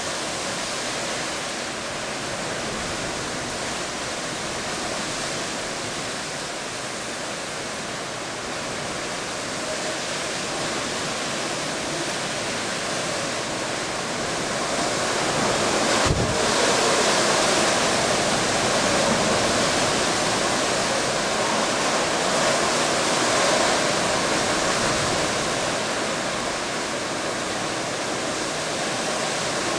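Typhoon Songda's storm-force wind, a steady noisy roar that swells louder after a single low thump about halfway through.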